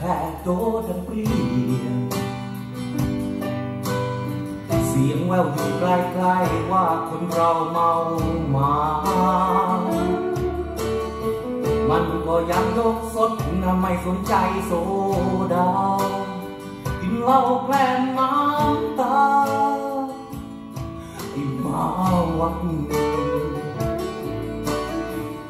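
A Thai song played from a vinyl record through hi-fi loudspeakers: plucked guitar over bass, with a wavering lead melody.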